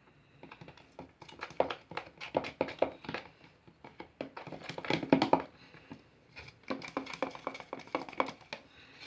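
Close, irregular clicks and taps of hands handling objects, pausing briefly about six seconds in.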